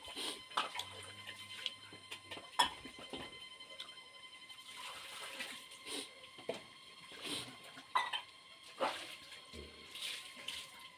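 Close-up mouth sounds of a person eating with his fingers: irregular wet chewing and lip smacks, with sharp clicks every second or so.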